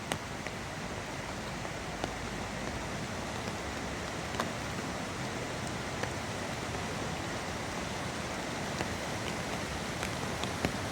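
Steady rain falling, with scattered sharp drops striking nearby surfaces.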